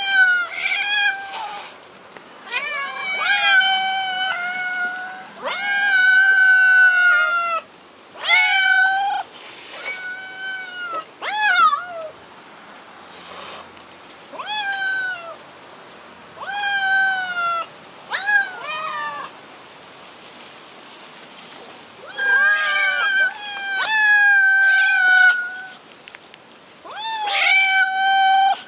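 Domestic cats meowing over and over, one drawn-out call after another with a short lull past the middle, begging for their food.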